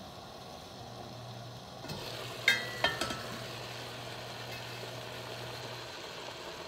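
Stainless-steel pan lid clinking with a brief metallic ring as it is lifted off, two or three clinks about two and a half seconds in. Paprika-seasoned chicken pieces then sizzle as they brown in the pan, over a low steady hum.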